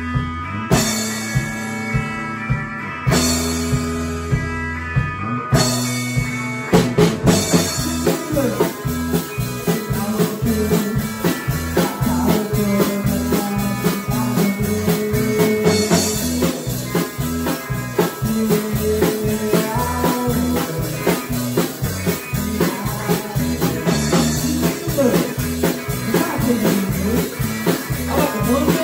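A band playing a country-blues song on electric guitars, bass guitar, keyboard and drum kit. It opens with a few held chords that stop short, then settles into a steady full-band groove about seven seconds in.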